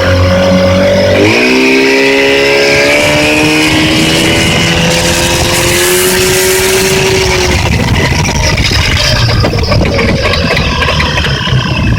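Yamaha 30 hp outboard motor running, a motor that has a knock. About a second in it revs up sharply, holds high revs with the pitch creeping slowly higher, then drops back to a rougher, lower running about three quarters of the way through.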